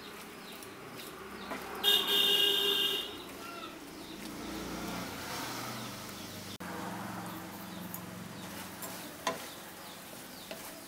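Coconut, sugar and milk mixture bubbling in a kadai over a low flame while a spatula stirs and scrapes it. About two seconds in, a horn toots once for about a second, the loudest sound; a low steady hum runs through the middle seconds.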